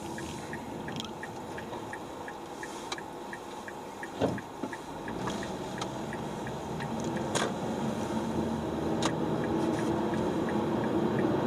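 Steady road and engine noise inside a moving car's cabin, growing a little louder toward the end, heard through an Olympus TG-870 camera used as a dashcam whose loose zoom lever rattles with the car's vibration. A regular light ticking, about three a second, runs through the first few seconds, and a single thump about four seconds in is the loudest moment.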